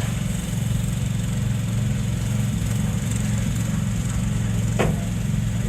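Small engine of a Chinese-built mini excavator running steadily at an even speed, with one short sharp clank near the end.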